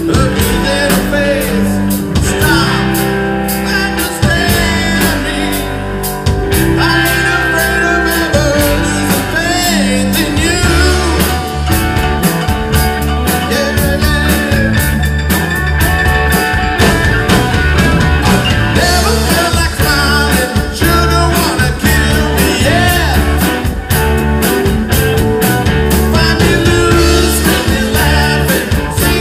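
Live rock band playing, with electric guitars and a drum kit driving a steady beat under a lead singer.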